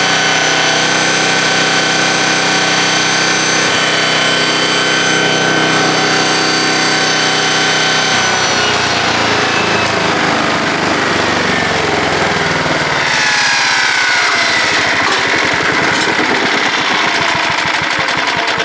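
Gas-engine Landworks wood chipper running loudly. Its note is steady at first, then turns rougher and wavering about halfway through.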